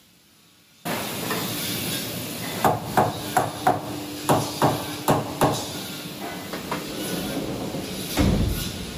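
Workpiece being seated in a CNC mill's machine vise: about ten sharp metallic taps in quick succession, roughly three a second, over a steady hiss and low hum. Near the end, the machine's sliding guard door shuts with a heavy thud.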